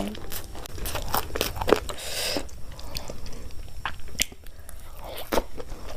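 Close-miked eating sounds: a person biting and chewing food, with many short wet mouth clicks and a brief rustle about two seconds in.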